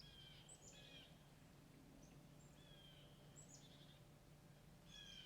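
Faint small-bird calls: short chirps, each sliding down in pitch, come in small clusters several times over a quiet outdoor background.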